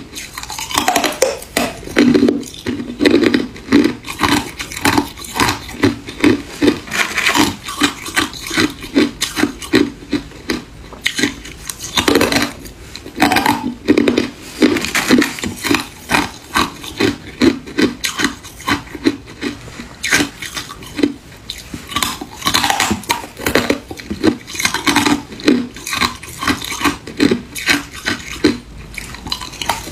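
Thin shards of ice being bitten and chewed in the mouth: a steady run of crisp crunches, about two to three a second.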